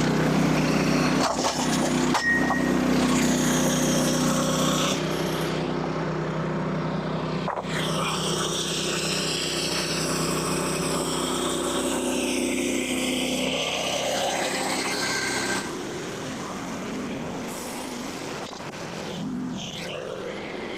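Portable bandsaw sawmill's engine running steadily. About three-quarters of the way through its steady drone drops away suddenly, leaving a fainter noise.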